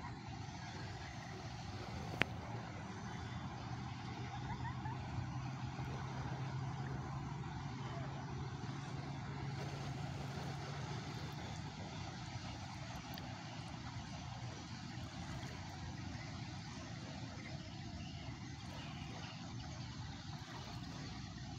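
Steady outdoor noise with a low, even engine hum from a few seconds in until about halfway through, and a single sharp click early on.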